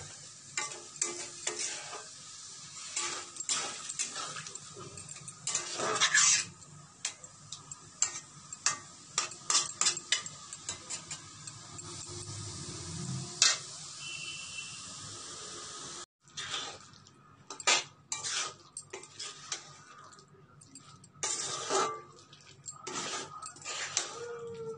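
A metal spatula scraping and clinking against a metal kadai as long beans are stirred and fried in it, over a low sizzle. The knocks come irregularly throughout, with a sudden short break about two-thirds of the way through.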